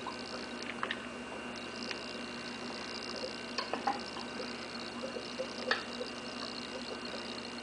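Aquarium fish feeding at the water surface, making scattered small lip-smacking clicks and pops, a few louder than the rest, over a steady background hum.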